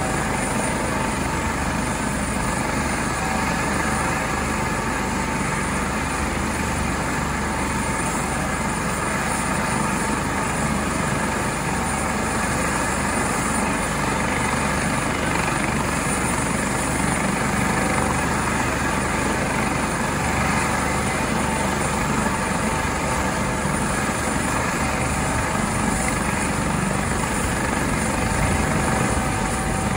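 Air ambulance helicopter running steadily on the ground before takeoff: an even rush of turbine and rotor noise with a constant high whine.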